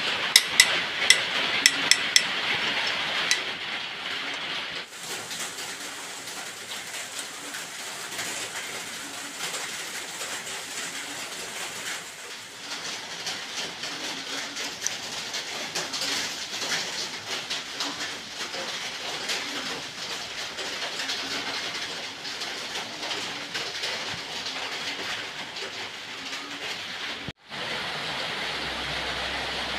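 Metalwork on a brake caliper clamped in a vise: about six sharp metal strikes in quick succession, then a long stretch of steady noise with faint, irregular knocks.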